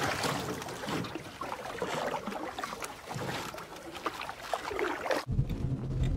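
Water lapping and trickling against the hull of a small boat moving through still swamp water. A little over five seconds in, it cuts abruptly to a steady low rumble.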